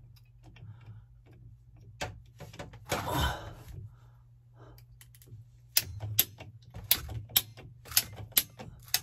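Ratcheting pipe cutter being squeezed through a CPVC water pipe: a few faint clicks and a short scrape, then, in the last few seconds, sharp ratchet clicks about two a second.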